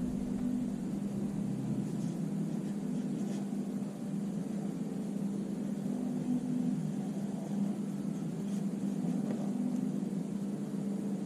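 Steady low hum with an even hiss over it, the constant background of the recording room, with a few faint light ticks scattered through it.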